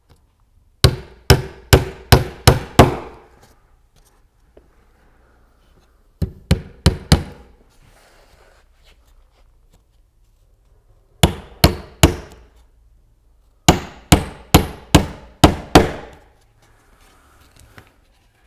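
Hammer driving nails into a cedar hive eke. There are four runs of quick blows, about six, four, four and six, with pauses between the runs.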